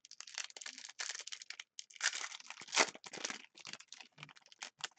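Irregular crinkling and rustling of plastic or foil wrapping as trading cards are handled, loudest in a burst in the middle.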